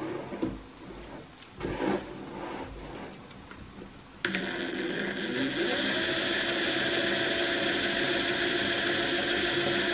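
Makita TD170D 18V brushless impact driver spinning its long bit in free air with no load, starting suddenly about four seconds in, rising briefly in pitch as it spins up and then running steadily. Before it starts there is glove rustling from the tool being handled, with a couple of knocks.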